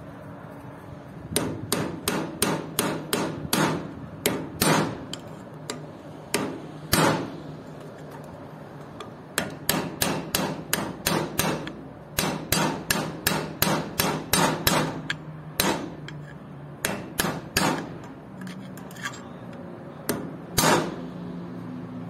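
A hammer striking a steel punch against the edge of a car jack's steel cylinder, driving at the seam of its end ring. The blows come in quick runs of about three or four a second, broken by short pauses.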